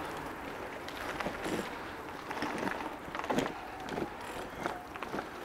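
E-bike crossing a railway level crossing, its wheels and frame knocking and rattling several times at irregular intervals as they go over the rails, over a steady rush of wind and rolling noise.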